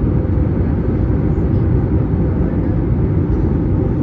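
Steady low cabin roar inside an Airbus A321neo in descent, the mix of airflow rushing past the fuselage and its CFM LEAP-1A turbofan engines, heard from a window seat over the wing.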